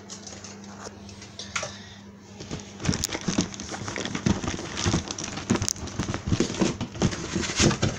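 Cardboard model-kit box being opened and handled, with plastic parts bags crinkling: a quiet start over a faint steady hum, then a dense run of irregular rustles and clicks from about three seconds in.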